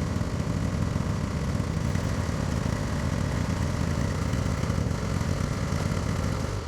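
Zero-turn lawn mower engine running steadily, cutting off suddenly near the end.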